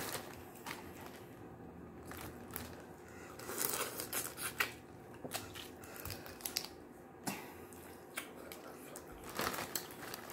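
Boiled crawfish being cracked and peeled by hand: scattered snaps and crackles of shell, with a few busier clusters in the middle and near the end.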